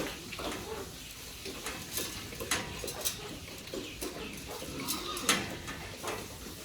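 Pigs grunting in short calls, with scattered sharp clicks and knocks, the loudest a little past five seconds in.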